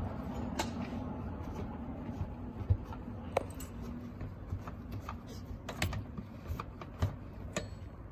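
Irregular light clicks and knocks of a Makita 4401 sash router being handled, over a faint steady hum that fades out about halfway through.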